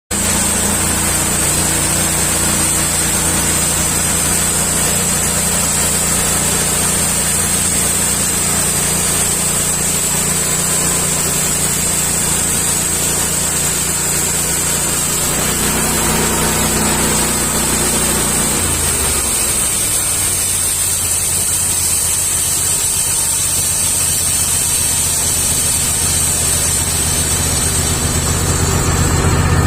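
Engine-driven sawmill sawing lumber from a log: a steady engine drone under a continuous high blade whine. The engine note shifts about halfway through and sags downward around two-thirds of the way in, then settles again.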